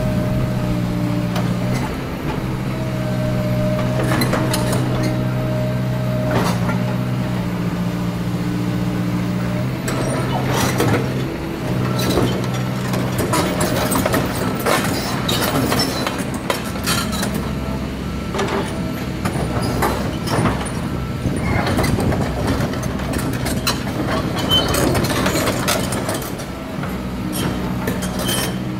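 Kobelco SK200 hydraulic excavator's diesel engine running steadily, with a steady whine in the first few seconds. From about ten seconds in the machine travels on its steel tracks, with a busy run of clanks and squeaks.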